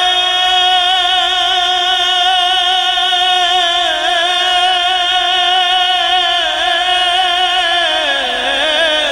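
A male naat reciter singing into a microphone, holding one long wavering note with vibrato that slides down in pitch near the end.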